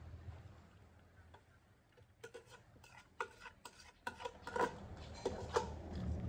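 Dogs eating from a shared plate, with irregular clicks and taps of teeth and muzzles against the plate starting about two seconds in.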